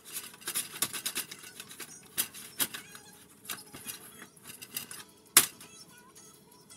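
Spatula scraping and knocking against an enamel saucepan while stirring thick, sticky play-dough mixture that is close to forming a ball: irregular clicks and scrapes, with one sharper knock about five and a half seconds in.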